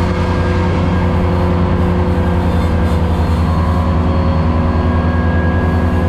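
Ventrac 4500Z compact tractor's diesel engine running steadily under load, with the 72-inch finish mower deck working through tall grass. Heard from inside the cab as an even low drone with a fine regular pulse.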